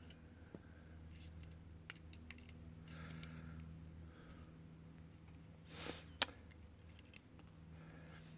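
Small metal lock parts being handled: scattered light clicks and taps, with a short scrape about six seconds in and a sharp click just after it, the loudest sound.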